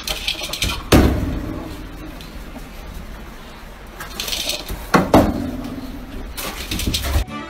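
Two sharp knocks with a short ring after each, about a second in and again around five seconds in, with soft hissy rustling between them.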